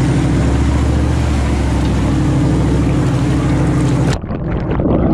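Four-wheel-drive vehicle's engine running steadily as it drives a trailer through a shallow creek, with water rushing and splashing. About four seconds in the sound turns suddenly muffled as water washes over the microphone.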